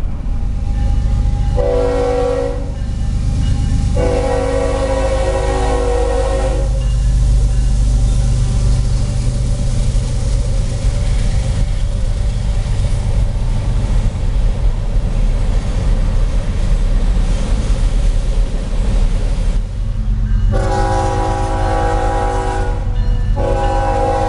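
Diesel freight locomotive horn: a short blast, then a longer one, giving the grade-crossing warning. After that comes a long stretch of steady low rumbling as freight cars roll past the crossing, and then two more long horn blasts near the end.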